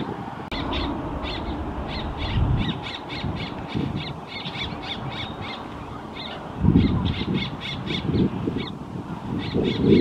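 Grackle fledgling begging: a rapid run of short, high calls, about three or four a second, with a brief pause near the end. Low wind rumble on the microphone lies under it and gusts up about two-thirds of the way through.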